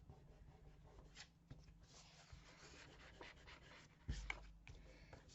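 Faint rustling and rubbing of paper as a glued sheet is folded over and smoothed down by hand, with a soft knock about four seconds in.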